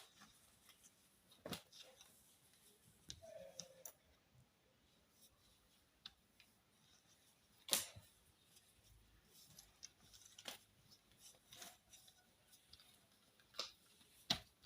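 Faint handling noises of packaging being opened: scattered small clicks and crinkles, with a sharper click about halfway and another near the end.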